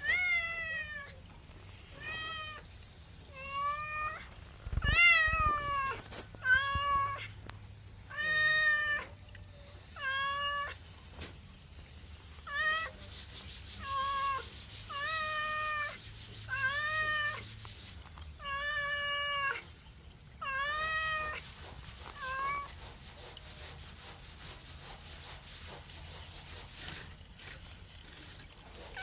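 A cat meowing over and over, high-pitched calls about one a second, some rising and some falling in pitch. The meowing stops about three quarters of the way through.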